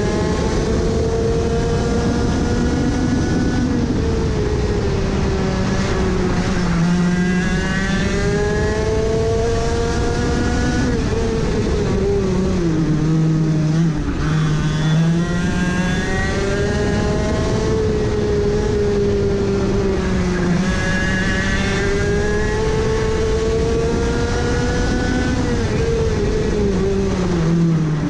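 Two-stroke racing kart engine at full race pace, heard close from on board: its pitch climbs steadily along each straight and drops sharply into each corner, four times over.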